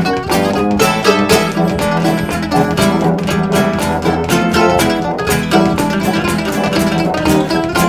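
Instrumental string trio playing: mandolin and acoustic guitar picking and strumming a steady rhythm over a bowed cello.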